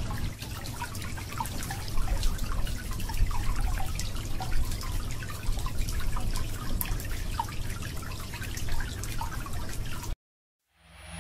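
Water trickling and dripping: a steady wash with many small irregular drips, which cuts off suddenly about ten seconds in.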